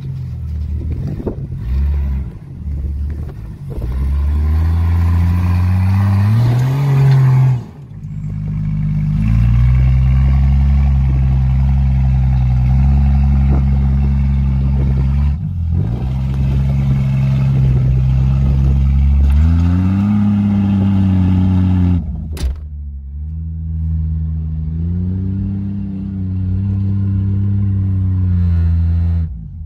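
Jeep engine working under load on a steep dirt-ledge climb, running steadily and revving up about 6 seconds in and again about 20 seconds in. The sound breaks off abruptly between takes, with a sharp click about 22 seconds in.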